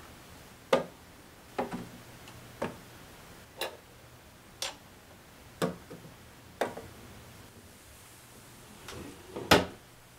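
Toiletry bottles, tubes and jars set down one after another on the shelves of a bathroom medicine cabinet, each a short knock, about one a second. Near the end the cabinet's mirrored door swings shut with the loudest knock.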